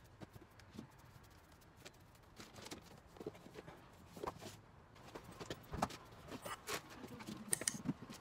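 Faint, scattered rustles and light knocks of newspaper and chayotes being handled as the squash are wrapped and packed into a plastic bucket, growing busier in the second half.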